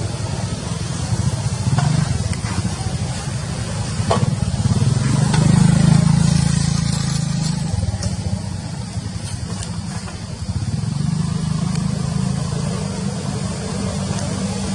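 Low drone of a motor vehicle engine running nearby. It swells to its loudest about six seconds in, eases off, then comes back, with a few faint ticks over it.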